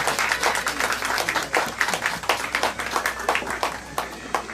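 Spectators clapping, a dense, irregular patter of handclaps that thins out and quietens near the end.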